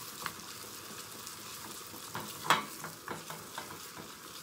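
Chopped onions sizzling in a small tempering pan while being sweated for a tadka, stirred with a spatula that scrapes and taps against the pan. The sharpest tap comes about halfway through.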